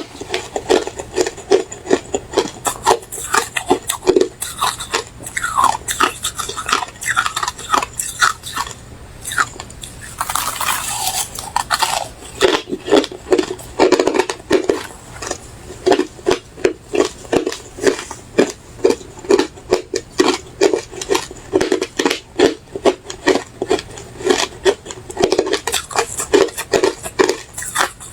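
Refrozen crushed ice being bitten and chewed with loud, crisp crunches, close-miked. It settles into a steady rhythm of about two crunches a second from about halfway through.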